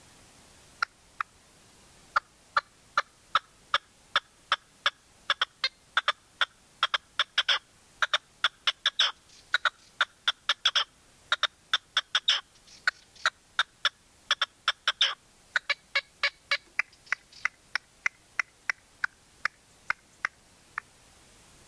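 Red-legged partridge calling: a long run of short, sharp notes, two or three a second. It starts with a few scattered notes, thickens into bunched notes in the middle, and thins out near the end.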